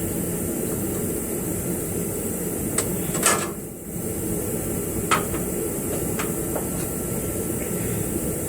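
Several sharp metal knocks and clicks, the loudest a little over three seconds in, from hand tools and parts working on a car's rear suspension, over a steady background hiss.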